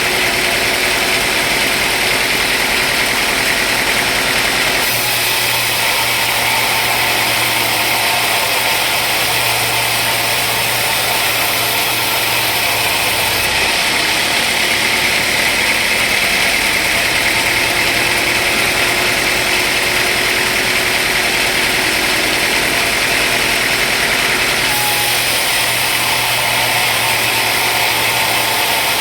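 Sawmill machinery running steadily and loudly, its tone shifting about five seconds in, again around thirteen seconds and once more a few seconds before the end.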